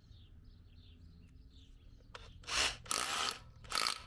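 Faint short chirps at first, then from about halfway through four or five short rasping strokes, the sound of hand work on metal or masonry.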